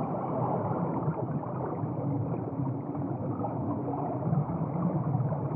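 Steady, muffled underwater water noise with a low rush, as picked up by an underwater camera.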